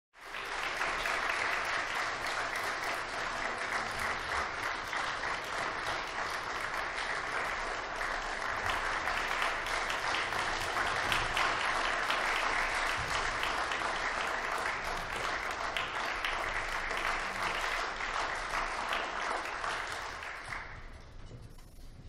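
Audience applauding: a dense, steady clapping that dies away near the end.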